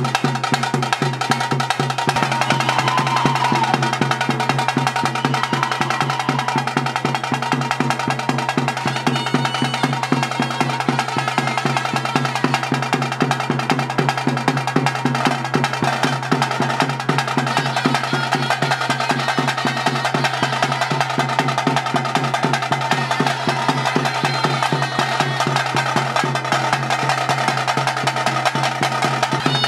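Bhuta Kola ritual music: rapid, steady drumming that goes on without a break, with a wavering pitched melody line over it.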